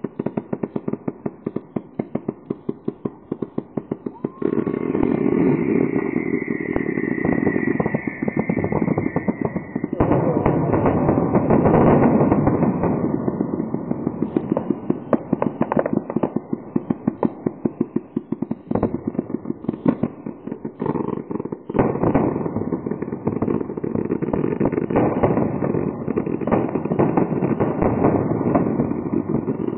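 Fireworks finale barrage: rapid reports of launches and bursts, about five a second at first, turning about four seconds in into a louder, dense, almost continuous crackling barrage. A high whistle rides over it for several seconds after the change.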